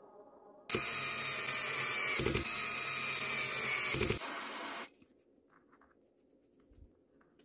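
A small handheld power tool running for about four seconds. It starts suddenly under a second in and cuts off, ending in a short quieter tail.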